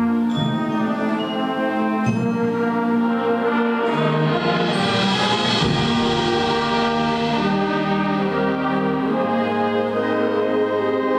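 Band music: brass and wind instruments playing slow, held chords that change every second or two, growing fuller about five seconds in.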